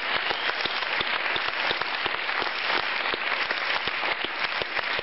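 Crowd applauding steadily.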